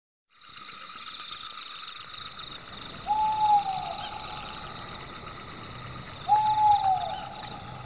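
An owl hooting twice, about three seconds apart, each hoot a single call that falls in pitch, over steady high-pitched insect chirping.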